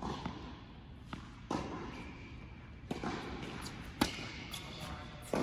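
Tennis ball bounced a few times on a hard indoor court, then struck by a racket on a serve about four seconds in, the loudest knock, with another knock near the end. Heard in a large indoor tennis hall.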